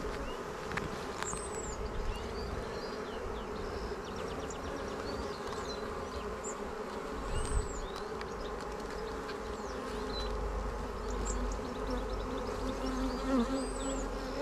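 Honeybees buzzing steadily: the hum of many bees around an open hive.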